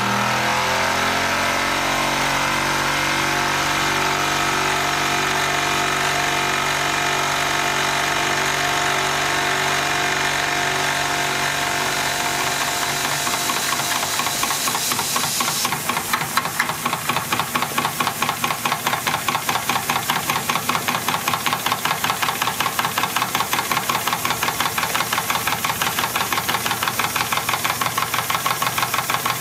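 Wilesco D24 toy steam engine running. First comes a steady mechanical whir that rises in pitch in the first second, then settles. About halfway in it gives way to a fast, even, knocking beat of the engine working.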